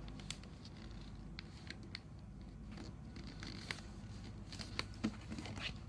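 A sheet of origami paper being folded and creased by hand: faint, scattered crinkles and taps of the paper over a low steady hum.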